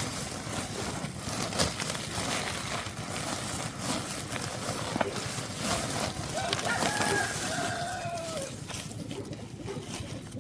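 A rooster crows once about six seconds in: one drawn-out call of about two seconds that drops in pitch at the end. Steady clatter and knocking go on underneath.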